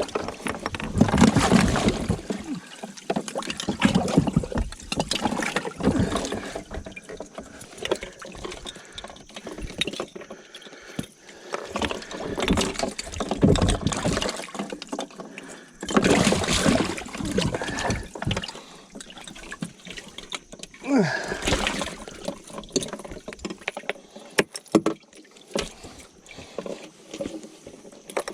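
Water splashing and sloshing at a fishing boat in uneven spells, with scattered knocks and clicks.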